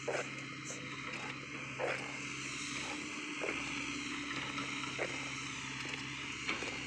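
Mini excavator's diesel engine running steadily at a distance. Short knocks recur about every second and a half, most likely footsteps on the concrete path.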